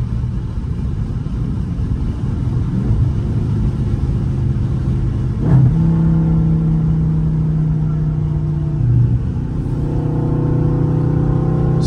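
Dodge Charger Scat Pack's 6.4-litre HEMI V8 heard from inside the cabin while cruising on the highway. Its note steps up sharply about halfway through, then climbs slowly as the car accelerates, over steady road noise.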